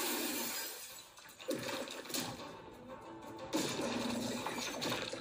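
Music from an anime episode's soundtrack. It drops quieter for a couple of seconds in the middle and comes back up about three and a half seconds in.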